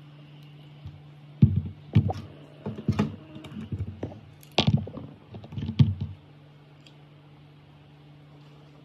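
Small plastic toy parts being handled close to the microphone: a run of irregular clicks and knocks lasting about five seconds, over a steady low hum.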